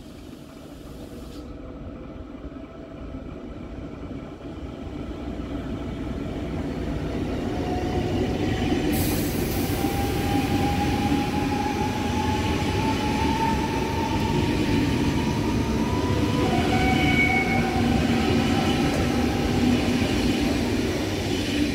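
ICE high-speed electric train running past on the platform track: a steady rolling rumble of wheels on rails that grows louder over the first several seconds as it approaches. Once it is alongside, a high hiss joins in and a whine rises slowly in pitch.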